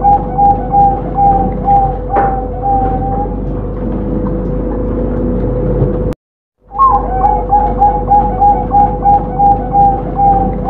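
Zebra dove (perkutut) singing: a run of quick, evenly spaced coo notes, about three a second, ending about two seconds in with a few slower drawn-out notes. After a pause and a brief cut-out to silence, the song starts again about seven seconds in, over a steady hum.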